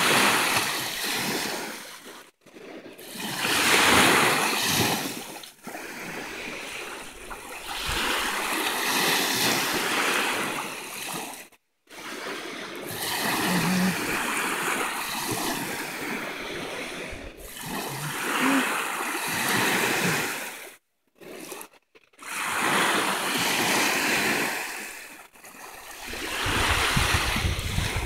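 Small lake waves breaking and washing up a sand beach, each wash swelling and fading every few seconds. The sound drops out abruptly for a moment several times.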